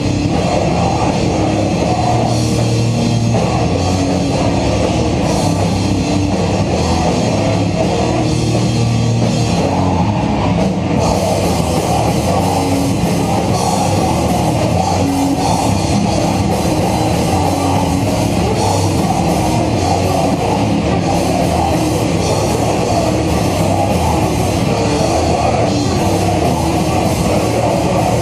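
A hardcore/thrash metal band playing live and loud: distorted electric guitars and a pounding drum kit in one dense, unbroken wall of sound.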